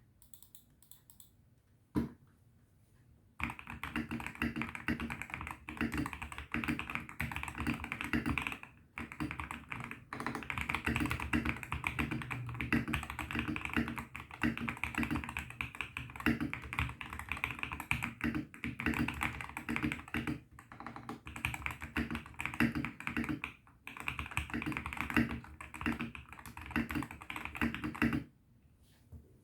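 Typing on a Koodo Solar 75% mechanical keyboard with lubed Ajazz Huano Banana switches, modded with PE and EVA foam for a poppier sound. A single keystroke about two seconds in, then fast, continuous typing from about three seconds in until shortly before the end, broken by a few brief pauses.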